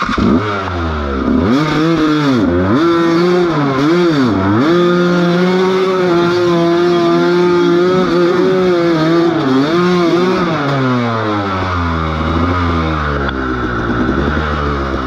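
Motorcycle engine revved up and down a few times, held at steady high revs for about five seconds, then dropping back to a low idle.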